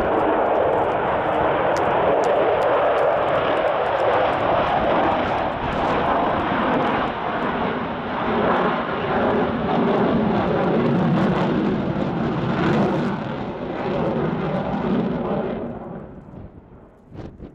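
Avro Vulcan XH558's four Rolls-Royce Olympus turbojets in a loud, dense jet roar during a display pass. The roar sinks lower in pitch through the pass and then falls away sharply near the end.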